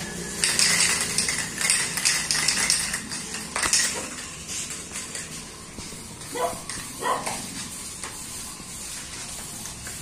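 Aerosol spray-paint can hissing in repeated bursts, heaviest in the first four seconds, then in thinner short puffs. Two brief squeaky calls come about six and seven seconds in.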